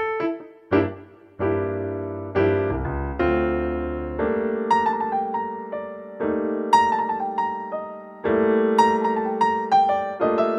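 Piano music: a melody of struck, fading notes over held chords, with a brief lull about a second in.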